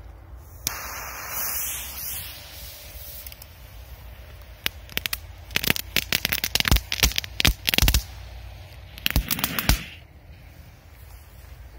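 Korsar 4 firecracker with a crackle effect. A click and a hiss as it is lit, then bursts of rapid sharp crackling from about five to ten seconds in. There is no main bang: the firecracker burned out without exploding.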